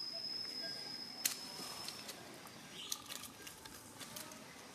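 Scattered sharp clicks and crackles of dry leaves and a plastic wrapper as monkeys move and handle them, loudest at about one second in and in a cluster near the end. Under them runs a steady high-pitched tone that stops about two seconds in.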